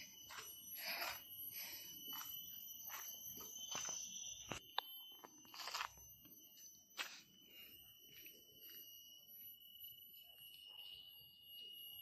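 Footsteps crunching irregularly on a forest trail, under a steady high-pitched insect drone.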